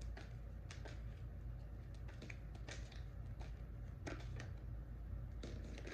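Tarot cards handled and shuffled by hand: soft, irregular taps and clicks of cards against each other, a few to the second, over a steady low hum.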